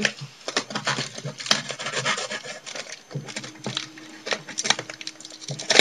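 Cardboard packaging being handled and worked open: irregular rubbing, scraping and small knocks against the box, with a sharper knock at the very end.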